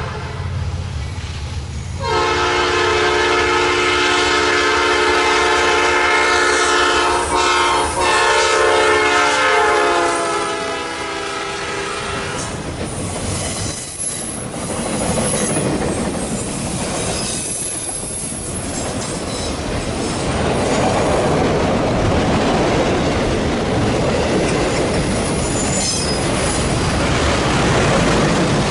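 A diesel freight locomotive's horn sounds a chord from about two seconds in, with a short break, and dips slightly in pitch as the locomotive passes. It stops about twelve seconds in, and the train's cars then rumble past with clattering wheels and occasional faint squeals.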